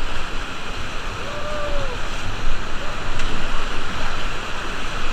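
Steady rushing of the Beas River's whitewater rapids around a raft, heard as a dense, even wash of water noise.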